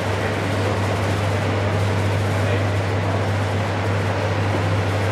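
Steady low electric hum under a constant, even whirr of running machinery, unchanging throughout.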